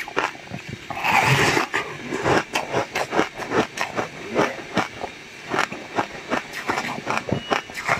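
Close-miked chewing and mouth sounds of someone eating a soft bun: a quick run of wet, smacking clicks, with a louder, noisier burst about a second in.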